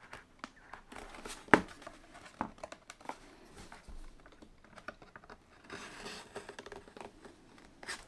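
Plastic pry pick scraping along the seam of a Dell Precision 5470's bottom panel, with scattered clicks as the panel's retaining clips pop loose. The sharpest click comes about one and a half seconds in.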